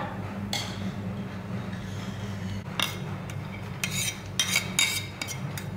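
Metal spoon clinking and scraping against a plate and a steel pot as diced carrot and coriander filling is tipped into mashed sweet potato, in a cluster of sharp clicks through the second half, over a steady low hum.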